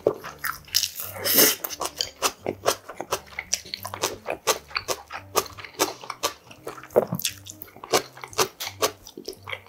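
Close-miked mukbang eating sounds: wet chewing and lip smacking on a mouthful of saucy budae bokkeum (stir-fried sausage, ham and noodles), with many quick irregular clicks, and a louder, longer burst of noise about a second in.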